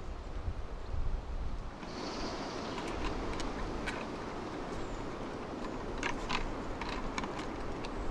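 A metal mesh bird feeder being handled and filled: scattered small sharp clicks and rattles, densest about six seconds in. Low wind rumble on the microphone fills the first two seconds.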